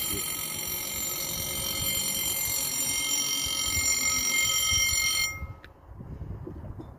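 Level-crossing warning bell ringing steadily while the red-and-white barrier arm lowers, then cutting off suddenly about five seconds in, once the barrier is down.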